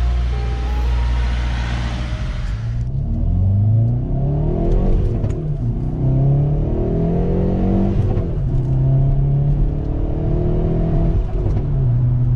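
Background music that stops a few seconds in, then the Hyundai Veloster N's turbocharged four-cylinder engine revving up and down several times before settling back to a steady idle.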